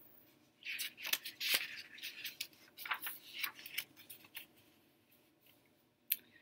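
Paper pages of a paperback picture book rustling and crinkling as a page is turned, a string of short papery rustles lasting about four seconds, followed by a single faint click near the end.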